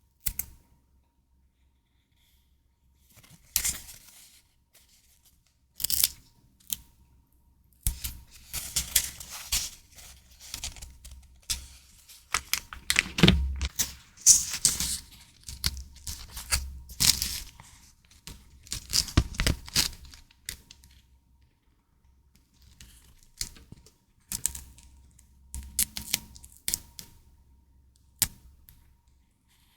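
Stationery packaging being torn open and crinkled by hand: irregular tearing and rustling strokes, busiest through the middle, with short pauses between them.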